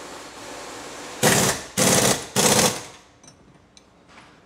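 Pneumatic impact wrench rattling in three short bursts, loud, after a steady hiss of about a second.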